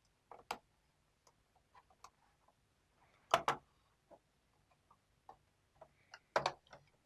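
Plastic clips of a laptop's bottom cover snapping loose as the cover is pried off: scattered light clicks, with a louder double snap about three seconds in and another cluster of snaps near the end.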